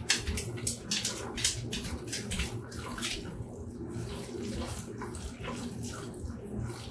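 Thick cooked oatmeal and applesauce being mixed in a large bowl: wet squelching and scraping in quick, irregular strokes, busiest in the first few seconds.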